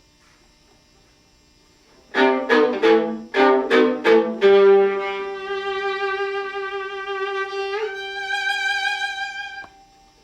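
Viola played with the bow: a handful of short detached notes, then one long sustained note that takes on vibrato near its end before stopping.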